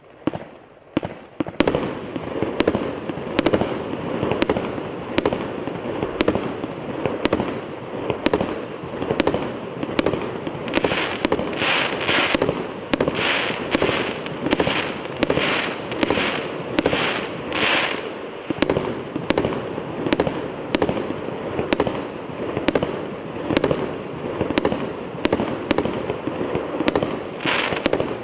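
A 150-shot consumer firework cake firing in rapid succession: sharp shots, roughly two a second, over a continuous crackle of bursting stars. It starts about a second in and keeps up a steady pace.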